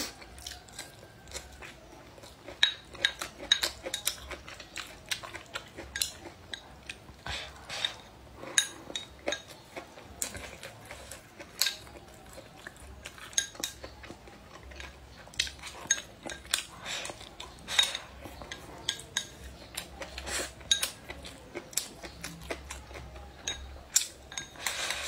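Wooden chopsticks clicking and scraping against a ceramic bowl of fried rice in many short, irregular taps while the food is eaten, with close-up eating sounds between.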